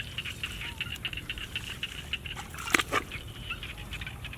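Bare hands digging through thick, waterlogged mud, giving irregular wet squelches and slaps, with one louder slap nearly three seconds in.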